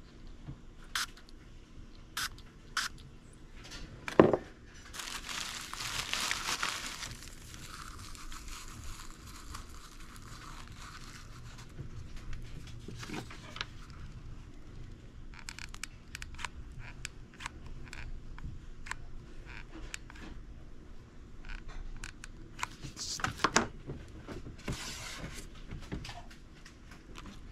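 Hands handling paper and plastic: crinkling and rustling with scattered clicks and taps, a sharp knock about four seconds in, and the densest rustling a little after that.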